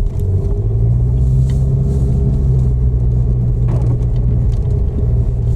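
A motor vehicle's engine running steadily, a loud low rumble with a constant tone.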